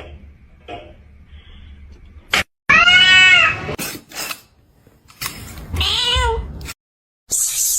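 A domestic cat meowing twice, each a drawn-out meow that rises and then falls in pitch, the first a little under three seconds in and the second about six seconds in. A loud hissing noise comes near the end.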